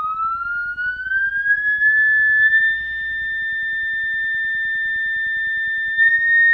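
Loudspeaker driven by a function generator, sounding a pure sine-wave test tone. The pitch glides smoothly up from about 1.2 kHz to about 1.8 kHz over the first two seconds, then holds steady.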